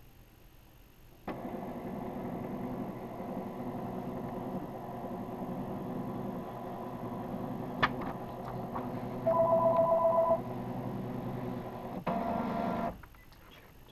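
Welch Allyn CP 150 electrocardiograph's built-in thermal printer running steadily as it feeds out the 12-lead ECG report, starting about a second in and stopping near the end. For about a second past the middle, the machine gives a loud, rapid pulsing electronic beep.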